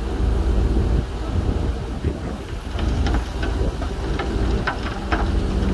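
Heavy diesel machinery running steadily with a low rumble. A series of short, sharp metallic clanks comes in about halfway through.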